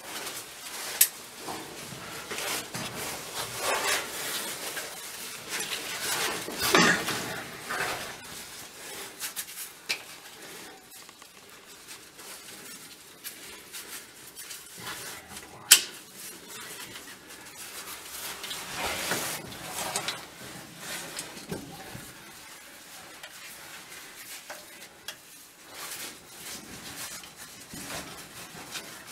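Caving gear clinking and scraping as a caver moves on rope: metal carabiners and rigging hardware knocking, with rope and suit rubbing on rock. Irregular, with one sharp metallic click about sixteen seconds in.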